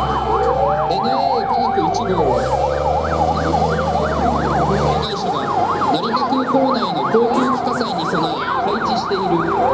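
Several fire engine sirens sounding together. One yelps, sweeping up and down about three times a second, while others wail more slowly. A heavy truck engine rumbles low under them until about five seconds in.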